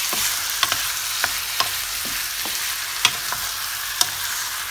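Raw chicken drumsticks, onion and garlic frying in oil in a non-stick pan with a steady hiss, while a wooden spatula stirs them, knocking sharply against the pan about eight times at uneven intervals.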